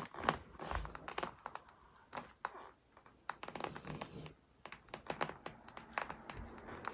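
Irregular scratching, clicking and crinkling of an adhesive-backed LED light strip being handled and pressed onto a motorcycle helmet shell, quieter for a stretch in the middle.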